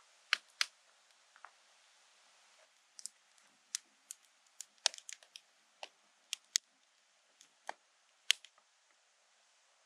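Wood fire crackling in a steel fire ring, with about twenty sharp, irregular pops over a faint hiss, the loudest a little past eight seconds in.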